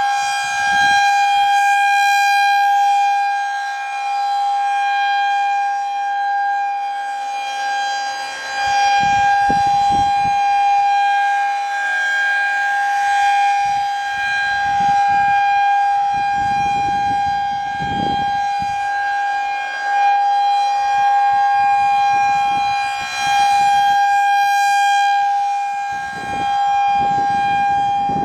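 Federal Signal 2001-SRN rotating electromechanical tornado siren sounding a steady single-pitch alert tone during a siren test. It swells and fades in loudness every few seconds as the rotating head sweeps past.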